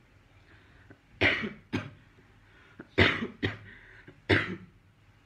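A man coughing five times: two pairs of coughs, then a single cough near the end.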